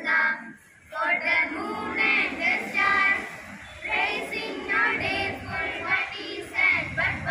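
Schoolgirls singing a prayer song together.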